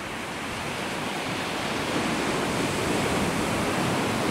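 Sea surf breaking on a sandy beach: a steady rush of water noise that swells louder over the first two seconds, then holds.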